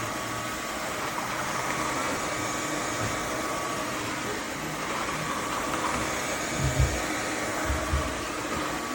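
Roborock F25 ACE cordless wet-dry vacuum mop running steadily with a faint whine as it goes back over a spill on a hard floor. Two low thumps near the end.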